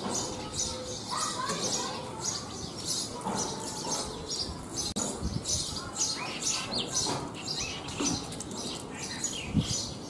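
A flock of house sparrows chirping continuously, many short high chirps overlapping in quick succession.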